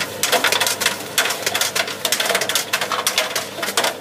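Tumble dryer drum turning with small loose items clattering and rattling around inside, among them a plastic dosing cup and a box of Tic Tacs; quick, irregular knocks, several a second.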